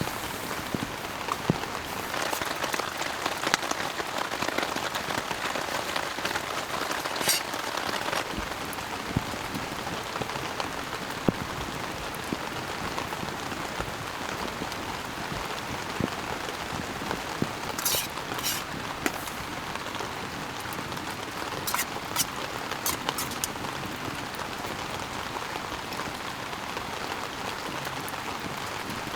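Heavy rain falling steadily, a dense hiss with individual drops ticking through it and a few brief sharp clicks.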